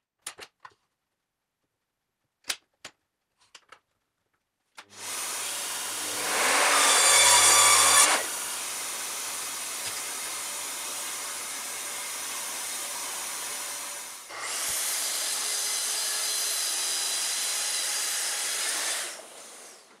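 A few light clicks and knocks as a timber batten is set against the fence of an Evolution sliding mitre saw. About five seconds in, a steady whirring of saw and extraction starts, louder for about two seconds while the blade cuts the wood. It runs on, breaks briefly, runs again and stops shortly before the end.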